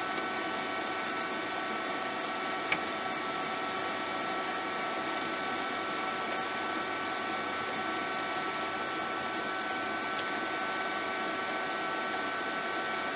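Wire feed motor of a Stahlwerk flux-core welding machine running steadily, pushing welding wire through the torch hose: a steady whine of several even tones, with one sharp click about three seconds in.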